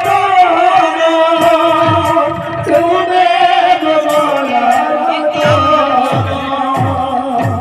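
Kirtan devotional music: singing over held notes, with a barrel drum's deep bass strokes falling in pitch about every two-thirds of a second.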